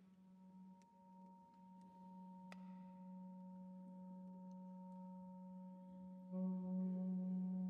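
Orchestra opening softly on a single low note held steadily. About six seconds in it swells as more instruments join with higher held notes.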